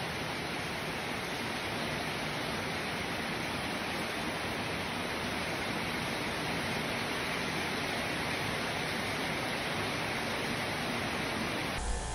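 Steady rush of heavy rain, with rainwater pouring and splashing through a leaking kitchen ceiling onto the cabinets and plastic containers below. The owner puts the leak down to roof and rain-gutter work the contractor never finished. The rush cuts off suddenly near the end.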